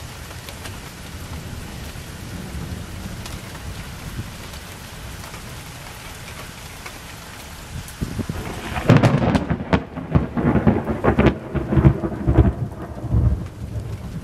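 Steady rain hiss, then about eight seconds in a sudden loud thunderclap from a lightning strike that rumbles on with repeated sharp cracks.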